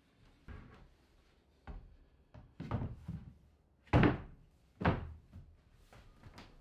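Plywood hatch lids in a boat's plywood floor being set and dropped into their openings: a series of wooden thunks about a second apart, the loudest about four seconds in.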